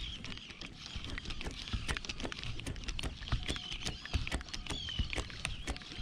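Spinning reel being cranked as a topwater popper is worked back, with quick irregular clicks and ticks close to the mic. Seabirds call over it in short wavering cries, over a low rumble.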